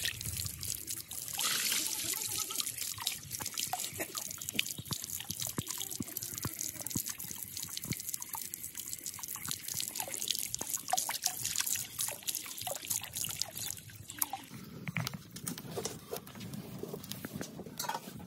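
Water running from a garden hose into a plastic tub, trickling and splashing as a plucked chicken is rinsed in it by hand. For the last few seconds the sound turns duller and lower.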